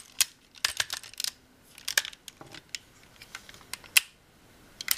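Irregular plastic clicks and clacks from the joints and parts of a Transformers Cybertron Scattershot action figure as it is bent and folded by hand. There is a sharper single click about four seconds in.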